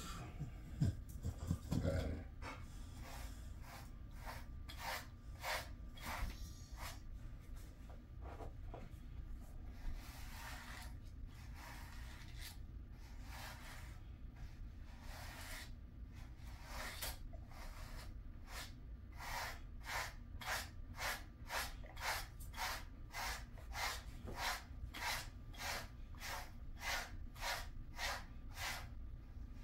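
A grooming brush stroked through a Jindo dog's coat: repeated short rasping brush strokes, irregular at first and then steady at about two a second. A few low thumps from handling and shifting on the mesh cot come near the start.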